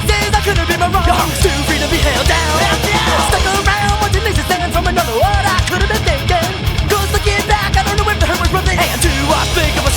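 Punk rock band recording: distorted guitars, bass and drums with a shouted vocal.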